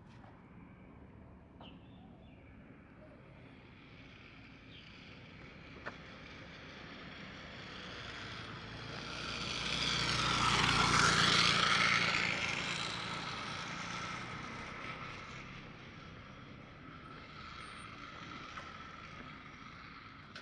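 A road vehicle approaching and passing close by: its noise builds over several seconds, peaks about halfway through with a falling pitch as it goes past, then fades away.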